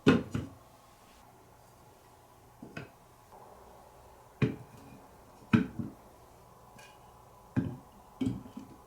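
Marbles clacking and knocking on a wooden marble-run course: sharp separate clacks with short ringing tails, some in quick pairs, coming at irregular intervals about a second or two apart.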